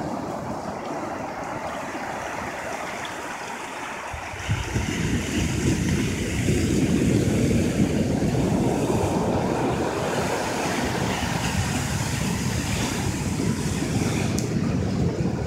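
Ocean surf washing up a beach, with wind buffeting the microphone; the wind rumble gets louder about four and a half seconds in.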